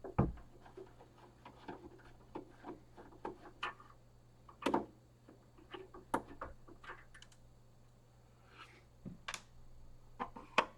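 Irregular clicks and light knocks of a magnetic screwdriver undoing the corner screws of a Commodore 1541 disk drive's plastic case, with the case being handled.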